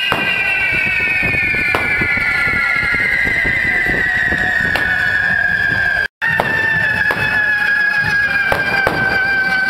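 Correfoc fireworks held aloft on poles spraying sparks with a hiss and scattered crackles, while a shrill whistle slowly falls in pitch. The sound cuts out for a moment about six seconds in.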